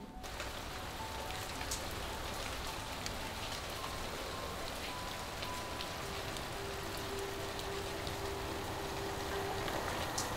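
Steady rain falling on a wet paved surface: an even hiss with a few sharper drop ticks.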